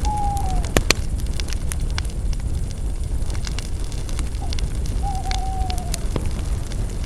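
Campfire of spruce branches burning: a steady low rumble under scattered sharp crackles and pops. Twice, at the start and about five seconds in, a short whistle falls in pitch.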